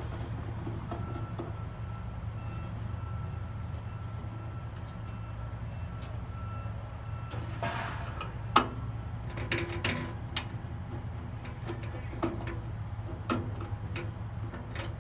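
Screwdriver and small screws clicking and tapping on the steel wall of a pellet grill barrel as the temperature sensor is unscrewed. There are scattered sharp metallic clicks in the second half, the sharpest about eight and a half seconds in, over a steady low background rumble.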